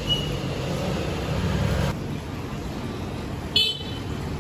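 Street traffic noise, a steady rumble of passing vehicles, with a short horn toot about three and a half seconds in.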